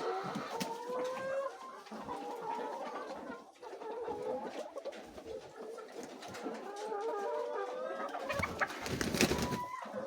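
A flock of chickens clucking and calling, many short overlapping calls. About eight seconds in there is a burst of rustling noise lasting a second or so.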